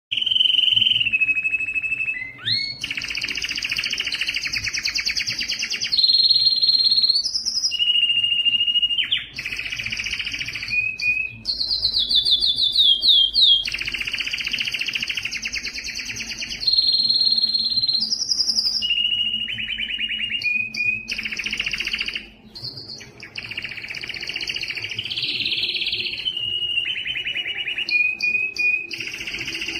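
Domestic canary, an excited male in breeding condition, singing a long unbroken song: rapid trills and rolls alternate with clear held whistles, and the phrase changes every second or two.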